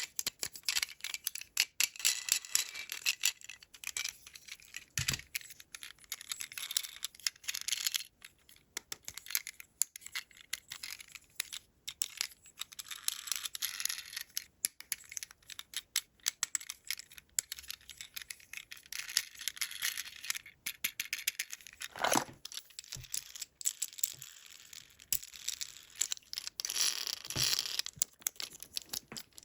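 Plastic toy packaging being opened by hand: crinkling and tearing with many small clicks and taps, and a few louder knocks.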